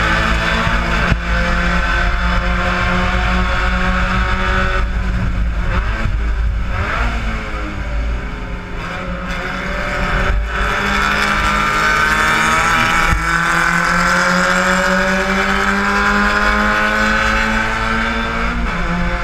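Spec Miata race car's four-cylinder engine heard from inside the cockpit under racing load. The revs fall for a few seconds as the car slows into a corner, then climb in one long steady rise under acceleration out of it, with a sudden drop in pitch near the end as it shifts up.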